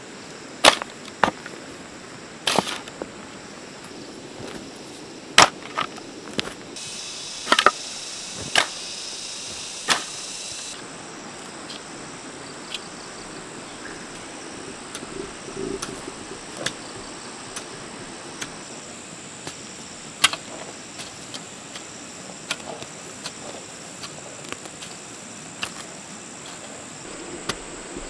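Garden hoe chopping into soil: sharp, irregular strikes, heavier and more frequent in the first ten seconds, then lighter and sparser. Insects trill steadily in the background.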